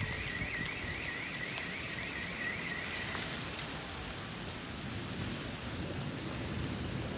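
Steady hiss of rain and gusty wind. A repeating warbling tone, about four cycles a second, sounds over it and stops about three seconds in.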